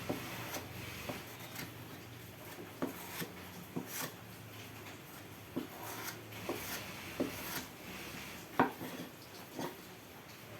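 Irregular light knocks and clicks of wooden pieces and tools being handled, about a dozen in all, the loudest a little after eight seconds in.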